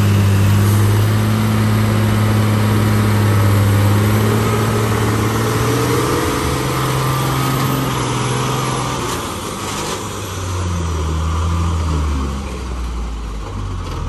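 Heavy Tata tipper truck's diesel engine pulling under load as the truck crawls through deep mud ruts. A steady low engine note drops lower from about ten seconds in.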